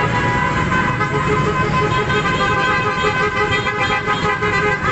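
A motorcade of many motorcycles and scooters riding past with engines running. Their horns are honking over it in steady, overlapping tones.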